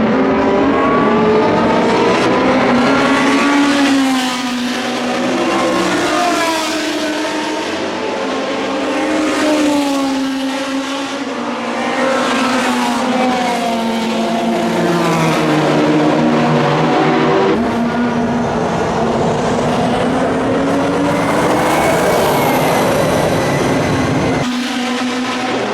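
Group C prototype race cars at full throttle, their engine note climbing and dropping repeatedly through gear changes and passes. The sound breaks off and restarts abruptly twice.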